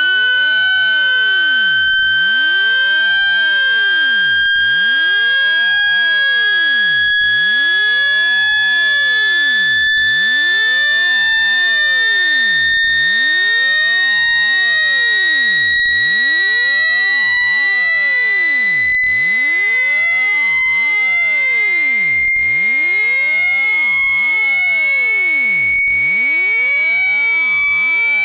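Synthetic speaker-cleaning tone: a loud, steady, high-pitched electronic tone with overtones, slowly rising in pitch, played to shake dust and moisture out of a phone speaker.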